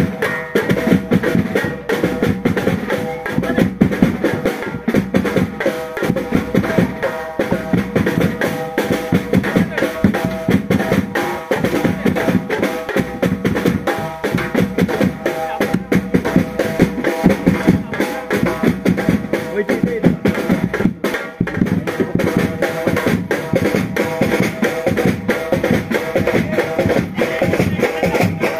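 Live procession band music: drums, including a drum kit and bass drum, beating a fast, steady rhythm under a held tune.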